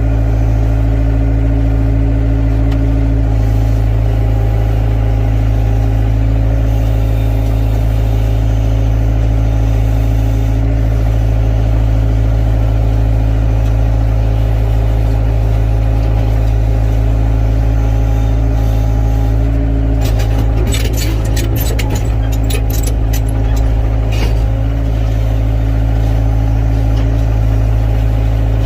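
Excavator's diesel engine running steadily. From about two-thirds of the way through, there is a spell of sharp clattering knocks lasting several seconds.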